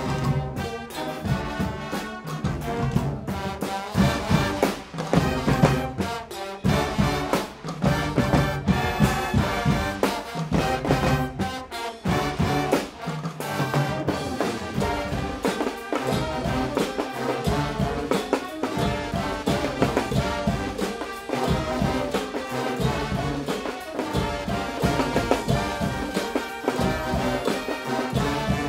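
Guggenmusik brass band playing live: trumpets, trombones and sousaphones blaring together over a steady beat.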